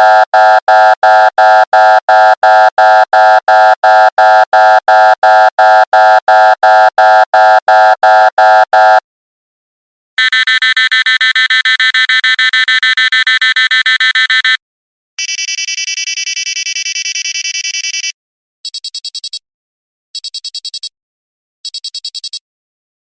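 A run of electronic alarm sounds one after another. First a loud buzzer pulsing about three times a second for some nine seconds. After a short pause comes a higher, fast-warbling alarm tone, then a still higher pulsing tone, and near the end short bursts of rapid beeps repeating about every second and a half.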